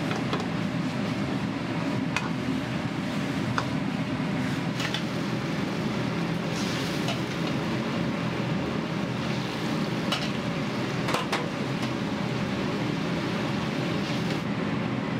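Wok cooking: food sizzling in a steel wok over a gas burner's steady rush, with scattered sharp clinks of a metal ladle against the wok.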